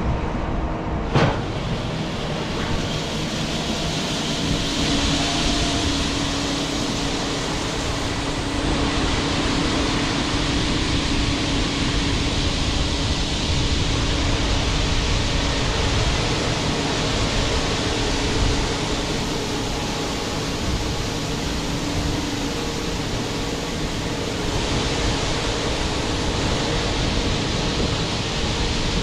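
Wind buffeting the microphone over the steady hum of harvest machinery engines, with one sharp click about a second in.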